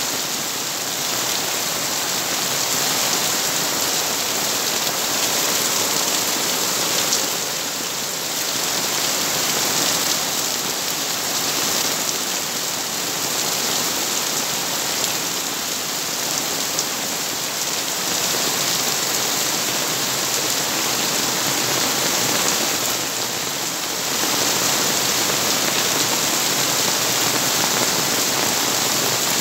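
Heavy downpour: a steady, dense hiss of rain on the ground and cars, with rainwater pouring off a roof edge and splashing onto a car's roof and body.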